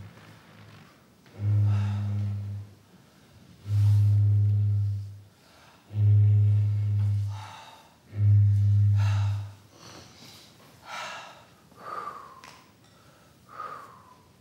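Traditional Māori blown instruments (taonga pūoro): a deep blown note sounded five times, each held about a second and a half, then a few short, high, falling whistled notes near the end.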